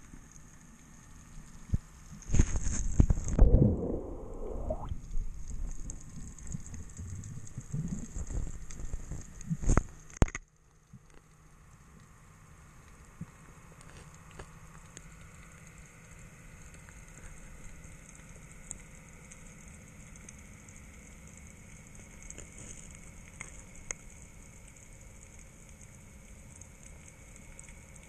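Underwater noise heard through a GoPro's waterproof housing on a breath-hold dive. For about the first ten seconds there is loud, irregular rushing and gurgling of water moving around the camera; this stops suddenly, leaving a quiet, steady hiss with faint scattered crackles.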